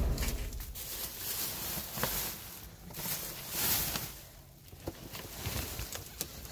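Rummaging through discarded office goods in a dumpster: packaging and cardboard rustling, with scattered light knocks and clicks of items being shifted.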